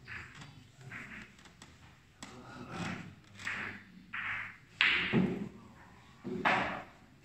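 Billiard-hall sounds: a string of short thuds and knocks, about seven over a few seconds, of balls striking cushions and one another on the tables, the loudest about five seconds in.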